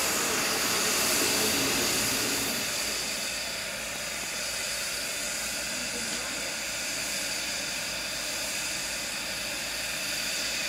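Steam hissing from a standing Ivatt Class 2MT 2-6-2T tank locomotive, its safety valves blowing off above the boiler. The hiss is louder for the first two or three seconds, then eases and stays steady.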